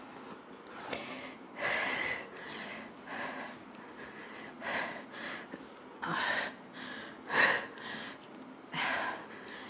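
A woman breathing hard with the effort of triceps bench dips: about a dozen short, noisy breaths, roughly one a second, some coming in quick pairs.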